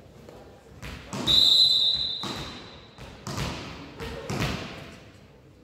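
Referee's whistle blown once, a steady high tone of nearly two seconds starting about a second in, the signal to serve. A volleyball is then bounced on the sports hall floor three times, about a second apart, each thud ringing on in the hall.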